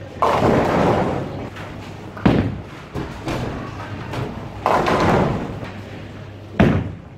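Bowling ball crashing into the pins, a clatter of about a second just after the start, with another clattering crash of pins about halfway through. Sharp thuds between them, and near the end a heavy thud of a bowling ball landing on the lane as it is released.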